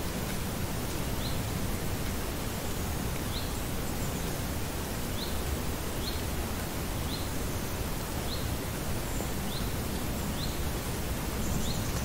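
Outdoor nature ambience: a steady, even hiss with a bird repeating a short rising chirp about once a second, and a few fainter, higher bird notes near the end.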